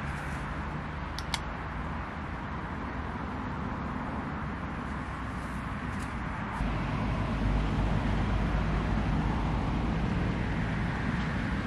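Steady road traffic noise from a busy roundabout. A little past halfway it gets louder and deeper as a vehicle passes close.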